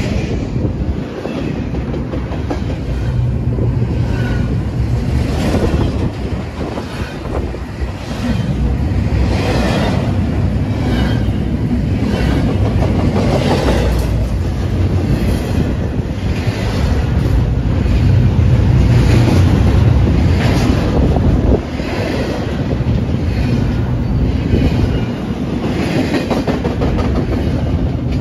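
Metra commuter train passing close by: a heavy low rumble with the wheels clicking over the rail joints about once a second, the clicks thickest in the middle and easing toward the end.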